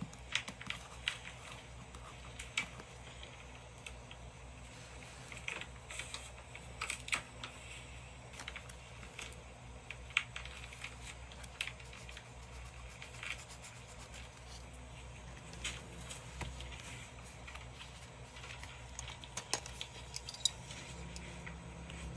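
Paper and sticker handling: irregular soft taps, clicks and brief rustles as fingers smooth down paper cut-outs on a journal page, tweezers pick at stickers and the pages are lifted. A faint steady low hum runs underneath.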